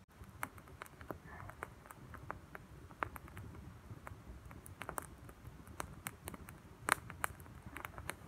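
Small twig campfire crackling, with irregular sharp pops; the loudest pop comes about seven seconds in.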